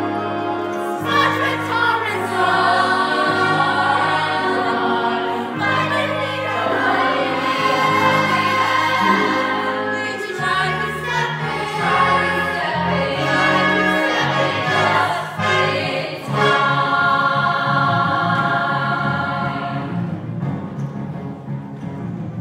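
Live show tune: several singers together over a pit orchestra, in sustained melodic phrases with a steady bass line.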